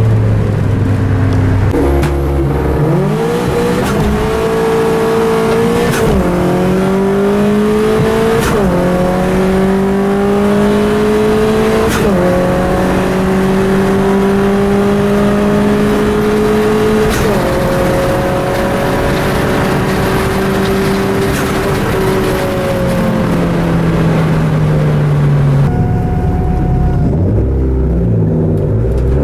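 Opel Astra T16's engine heard from inside the cabin under hard acceleration, its pitch climbing and then dropping at each of several gear changes. Later the pitch falls away as the car slows. Near the end the sound cuts to another car's engine heard from outside.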